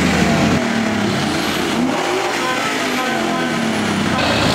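Truck engine revving, its pitch rising and falling several times. A hiss comes in suddenly near the end.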